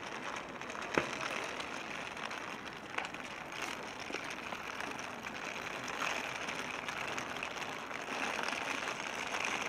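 Outdoor city ambience: a steady wash of background noise with scattered small clicks and taps, one sharp click about a second in.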